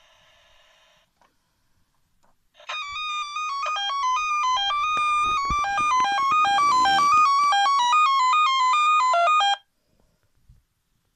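The built-in electronic sound unit of a 1979 Fisher-Price Alpha Probe 325 toy space shuttle, set off from its control-panel buttons, plays a fast beeping tune of quickly stepping electronic notes for about seven seconds, then cuts off suddenly. A faint electronic tone dies away about a second in.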